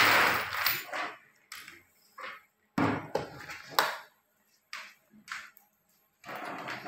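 Metal clinks and knocks from a steel metric surveying chain and its brass handle being handled on a table, a handful of separate sharp clinks with short quiet gaps.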